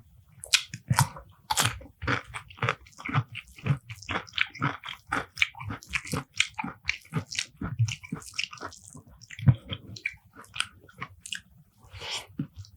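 Close-miked eating sounds: a person chewing and biting spicy beef curry with rice, with a dense run of short wet smacks and crunchy bites.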